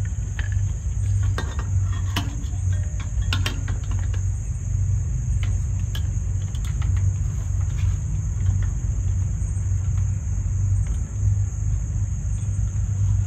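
Insects trilling steadily in a high, even band over a steady low rumble, with a few light clicks as electrical wires are handled and fed through a conduit weatherhead.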